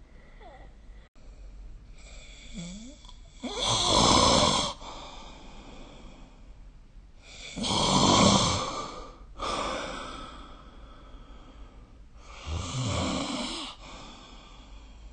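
A sleeping person snoring: three loud snores about four to five seconds apart, each lasting about a second, with a softer breath right after the second one.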